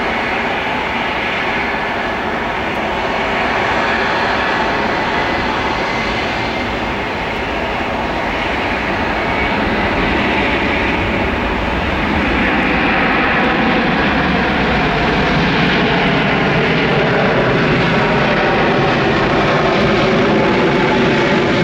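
Airbus A300-600F freighter's twin jet engines running at high power on the takeoff roll, a steady loud roar that grows louder about halfway through as the aircraft comes nearer.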